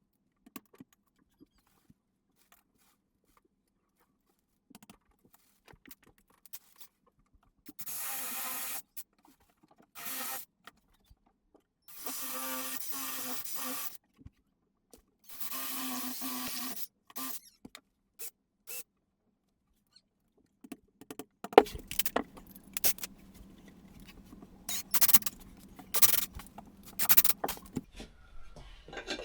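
Milwaukee drill with a 7 mm masonry bit boring holes in the wall, run in four short bursts of one to two seconds each. After that comes a run of sharp knocks and rattles over a low steady hum.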